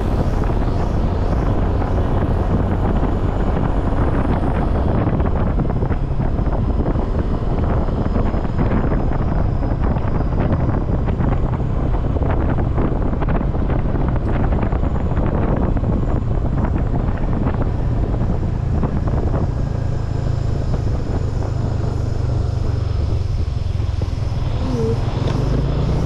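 Yamaha motor scooter being ridden along a road: a steady low drone of the engine and road noise, with wind buffeting the handlebar-mounted microphone.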